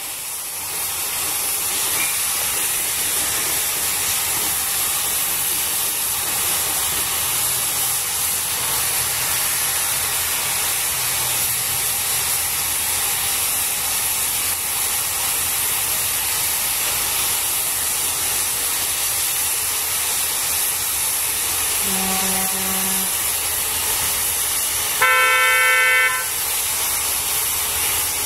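Steady hiss of steam around narrow-gauge locomotives. Two short low toots about two-thirds of the way through, then a louder, higher locomotive whistle blast lasting about a second.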